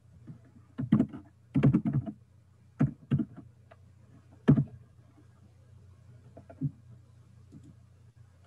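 Typing on a computer keyboard: quick runs of keystrokes in the first three seconds or so, then one louder click about four and a half seconds in and a softer one a couple of seconds later.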